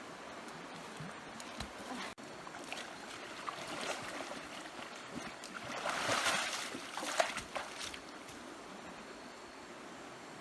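Water sloshing and splashing, louder for a second or so about six seconds in.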